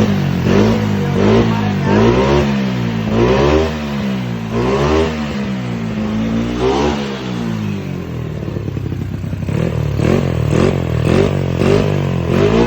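Yamaha Mio scooter's single-cylinder four-stroke engine, bored up to 58 mm, revved in repeated throttle blips. It drops back to a low idle about eight seconds in, then is blipped again in quick, short revs about every half second.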